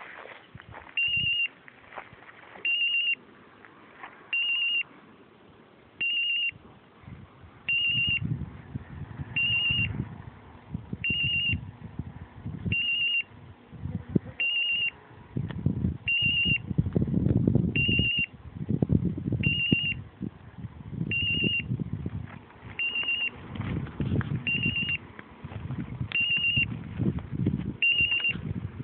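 A dog's beeper collar on an English setter sounds a short, high, trilling electronic beep about every 1.7 seconds, steady and evenly spaced. From about eight seconds in, a louder low rustling noise builds underneath.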